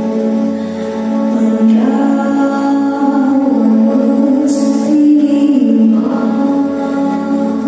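A group of women singing a song together, holding long notes.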